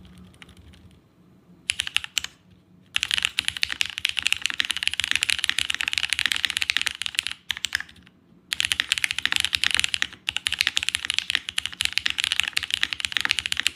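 Paper80 mechanical keyboard being typed on fast: a dense, continuous run of key clacks. It starts about three seconds in after a few stray key presses, pauses briefly in the middle, then carries on.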